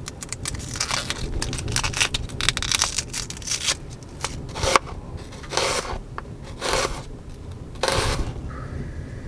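Dry, papery red-onion skin crackling as it is peeled off by hand, then a kitchen knife slicing through the onion onto a plastic chopping board in three separate short cuts.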